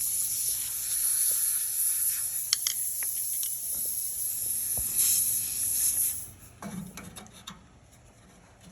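Air hissing steadily out of a punctured tire through the hole left by a just-removed screw. It stops abruptly about six seconds in, leaving only faint clicks of handling.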